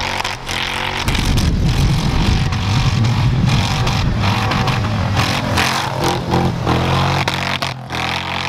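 Off-road Jeep's engine revving hard, the revs rising and falling, as its tires churn through deep powder snow with a rush of spraying snow.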